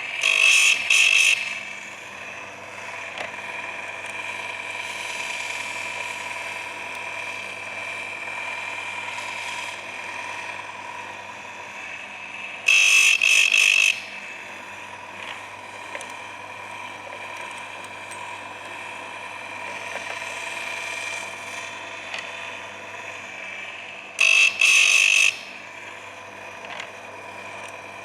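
Electric chainsaw chain sharpener's motor running steadily, with its grinding wheel brought down onto a chain tooth three times, about twelve seconds apart, each grind a harsh, loud rasp lasting about a second.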